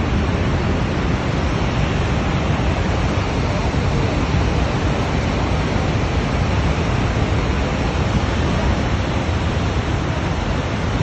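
Steady, loud roar of Niagara's Horseshoe Falls: rushing water with a heavy low rumble.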